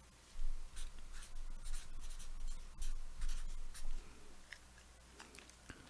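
Faint dry scratching and rustling with small ticks for about four seconds, dying away near the end.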